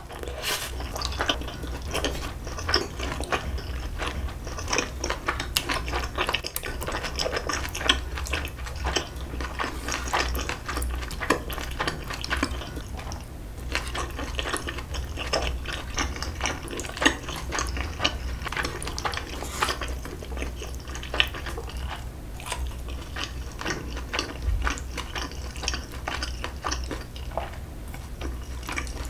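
Eating sounds of a person having instant ramyeon: wet chewing and slurping of noodles and broth, with many small irregular clicks of metal chopsticks and a spoon against an aluminium pot.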